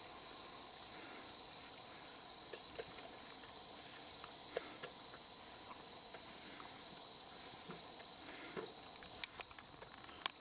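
Night insects chirping in a steady, high-pitched chorus, with faint scattered clicks and licking of dogs eating chicken from food bowls; a couple of sharper clicks near the end.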